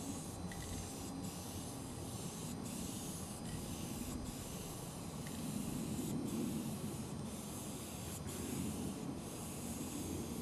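Aerosol spray-paint can hissing in long continuous bursts, broken by brief pauses, while graffiti is sprayed onto a freight car, with a low rumble underneath.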